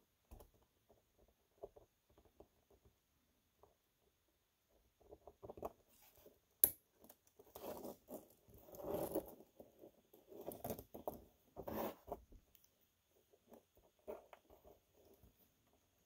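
Stainless steel watch bracelet and extended clasp being handled while spring bars are fitted with a spring bar tool: small scrapes, taps and rattles of metal links, with one sharp click a little past six seconds in.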